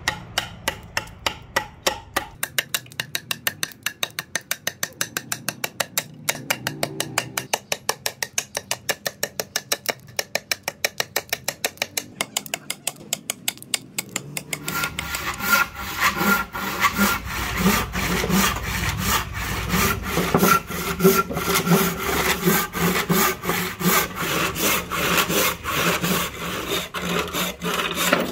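A machete-like blade chopping notches into a wooden axe-handle blank, quick sharp strikes about four a second. About halfway through it gives way to a handsaw cutting through the wood in steady back-and-forth strokes.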